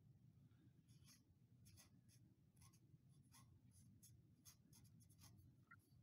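Very faint marker strokes on a metal tube: a series of short, irregular scratchy squeaks as a word is written, over low room hum; otherwise near silence.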